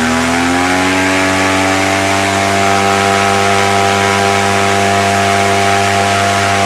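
Suzuki 1300 car engine driving a propeller through a 3:1 reduction, at full throttle in a static thrust test. The revs climb for about the first second, then hold steady at full power, and begin to drop as the throttle comes off at the very end.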